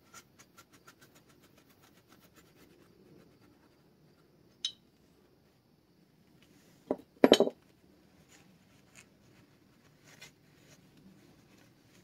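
A cloth rag rubbing over a small metal supercharger part, with faint quick ticks over the first few seconds and a single click about four and a half seconds in. About seven seconds in comes a short clatter of metal clinks, the loudest sound.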